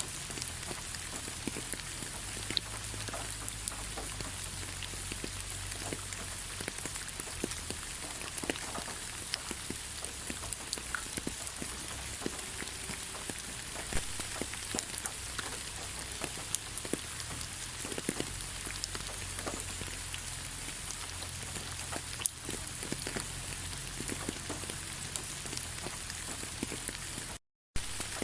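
Steady rain in a forest: an even hiss with many separate drops ticking close by. The sound cuts out for a split second near the end.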